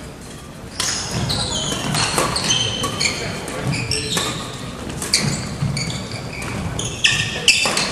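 Court shoes squeaking again and again on a hardwood gym floor, with sharp racket-on-shuttlecock hits and indistinct voices in a large sports hall.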